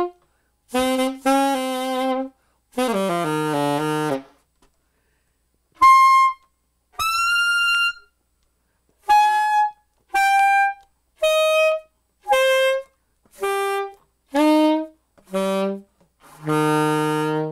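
Alto saxophone played open, without a mute, loud enough to read about 90 dB on a sound-meter app. It plays detached phrases with short silences between them: a quick downward run, two high held notes, then single notes stepping down one by one to a long low note at the end.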